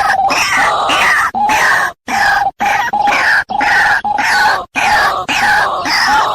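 White-breasted waterhen (ruak-ruak) giving its loud, harsh croaking call over and over, about two calls a second with short breaks, as used for luring birds.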